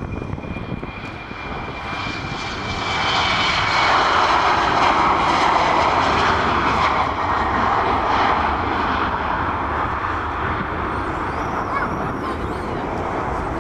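Embraer 190 jet's twin turbofan engines at takeoff power, a whine slowly falling in pitch over a rushing noise that builds about two to three seconds in, is loudest around four to seven seconds, then slowly fades.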